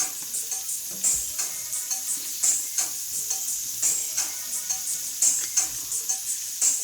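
Food sizzling in a frying pan while it is stirred, with irregular scrapes and knocks of the utensil against the pan over a steady hiss. Faint background music underneath.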